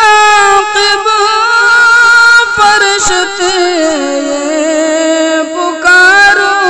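Naat singing: one voice holding long, wavering, drawn-out notes with no clear words.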